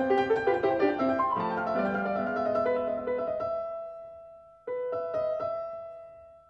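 Background piano music: a flowing phrase of notes fades away, then a single chord is struck about two-thirds of the way in and left to ring out.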